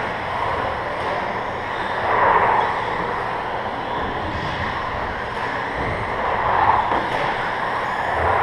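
1/10-scale RC stadium trucks racing on a carpet track: a steady hum of motors and tyres that swells twice as trucks pass close, about two seconds in and again near seven seconds.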